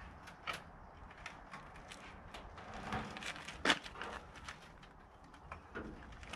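Scattered clicks, creaks and metal knocks as an old CZ 175 motorcycle is wheeled backwards out of a small trailer towards its ramp. The loudest knock comes a little past halfway.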